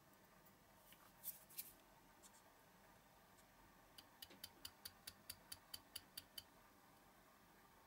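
Faint handwork at a small plastic cup: two light clicks, then an even run of about a dozen small ticks, roughly five a second, lasting a little over two seconds.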